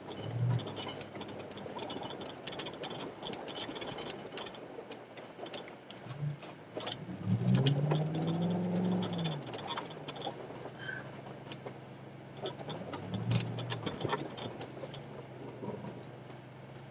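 Truck engine revving in surges as it is driven through mud, with one long rev about halfway through that climbs and then falls away, and a shorter push a few seconds later. Sharp clicks and rattles run throughout.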